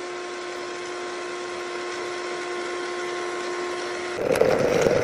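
Countertop blender running at a steady speed with a constant motor whine, blending frozen bananas and coconut cubes into a thick smoothie-bowl base. About four seconds in the sound changes to a louder, lower-pitched run of the blender.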